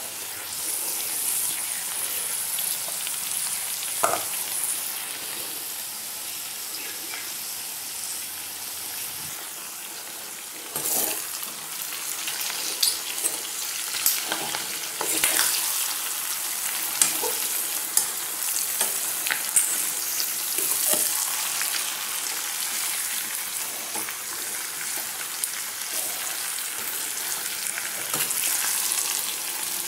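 Pork and potato pieces sizzling in hot oil in a metal wok-style pan, a steady frying hiss. A metal spoon scrapes and knocks against the pan as the food is stirred, with the clatter coming more often from about ten seconds in.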